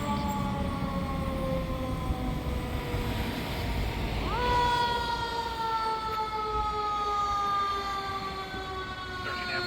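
The siren of a 2021 Sutphen Monarch fire engine, sounding as the truck responds to a call. Its pitch sinks slowly, rises again quickly about four and a half seconds in, then sinks slowly once more.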